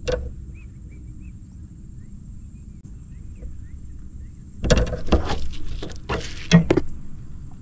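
Fishing tackle handled in a small boat: a sharp click at the very start, then a run of knocks, clicks and rustles from about five to seven seconds in as the rod and lure are picked up.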